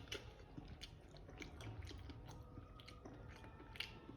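Faint chewing of a sauce-drenched chicken wing, with scattered small wet clicks from the mouth.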